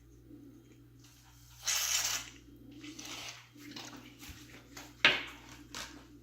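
Glue and shaving-foam slime being stirred in a container with a makeshift stick: scattered scrapes, squishes and taps. There is a short hissing burst about two seconds in and a sharp tap about five seconds in.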